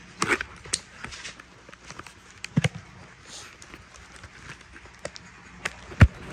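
Scattered clicks, knocks and scraping of a cardboard box being handled and pried open, with a sharp low thump near the end as the loudest sound.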